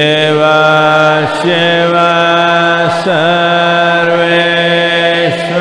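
A man's voice chanting a Shiva mantra in long held notes. The pitch dips and the note re-enters about a second in, near three seconds and near the end, over a steady low drone.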